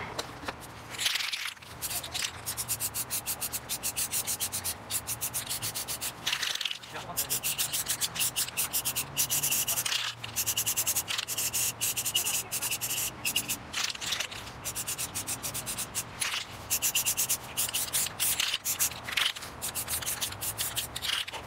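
Aerosol spray-paint can in use: short hissing sprays with a dense, rapid rattle from the can's mixing ball as it is shaken.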